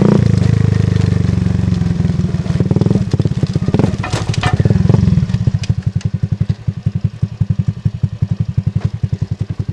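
Shineray Phoenix 50cc motorcycle exhaust recorded close to the pipe. The engine note winds down over the first five seconds, with a few clicks and rattles about four seconds in. It then drops to a quieter, steady idle of separate, evenly spaced exhaust pulses.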